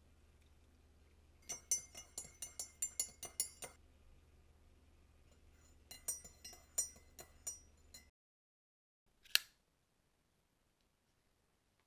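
A metal spoon stirring coffee in a ceramic mug: quick clinks against the side in two spells of about two seconds each. A single sharp click follows a little later.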